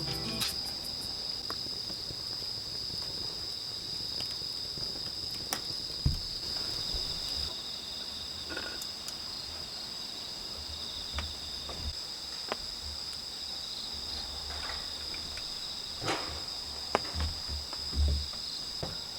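Insects, most likely crickets, chirping steadily in a high, unbroken drone, with a few scattered soft clicks and low thumps close by.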